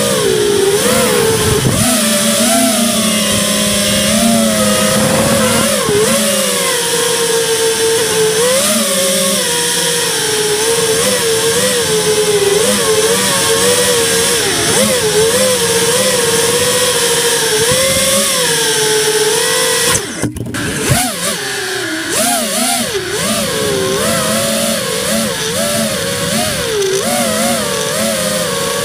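Brushless motors and propellers of an FPV quadcopter whining, the pitch wavering up and down continually with the throttle. The motors cut briefly about twenty seconds in, then spin back up.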